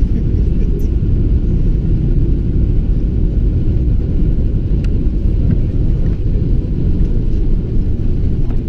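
Cabin noise of a Boeing 777-300ER on short final just before touchdown: a steady low rumble.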